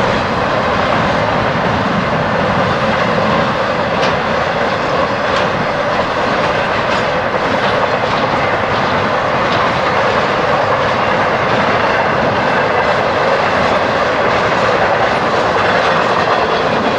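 Norfolk Southern freight train of empty intermodal cars rolling past at close range: a steady loud rumble and rush of steel wheels on rail, with scattered sharp clicks as the wheels cross rail joints.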